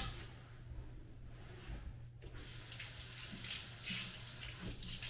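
A sharp knock at the very start, then a kitchen sink tap running water into the sink for about two and a half seconds, starting about two seconds in.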